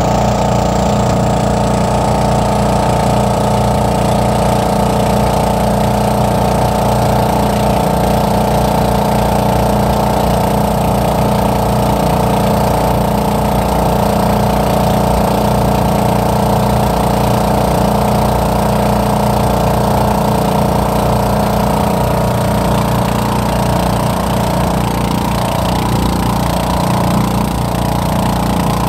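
Outrigger bangka boat's engine running steadily under way, with water rushing and splashing along the hull.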